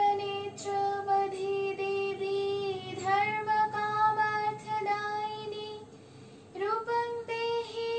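A young woman singing a slow melody solo, with long held notes; she breaks off briefly about six seconds in and starts the next phrase.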